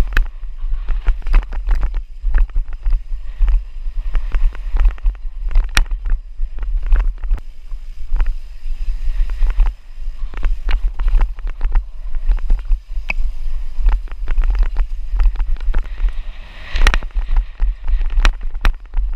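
Heavy wind buffeting on the action camera's microphone as a dirt-jump hardtail on slick tyres is ridden fast down a forest downhill trail, with frequent sharp clatter and knocks from the bike rattling over roots and bumps.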